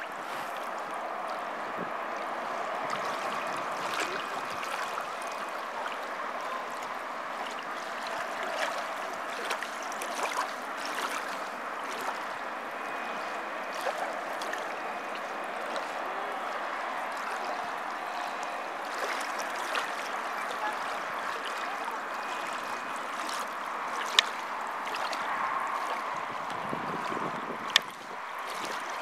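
Small waves lapping and trickling at the lakeshore, a steady soft water sound with scattered small ticks. Two sharp clicks stand out near the end.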